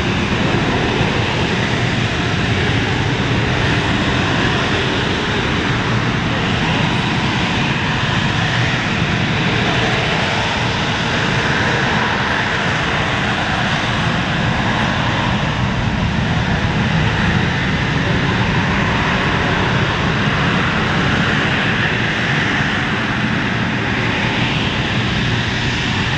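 Harrier jump jet hovering, its Rolls-Royce Pegasus turbofan running loud and steady at hover thrust, with a higher whine that slowly swells and fades.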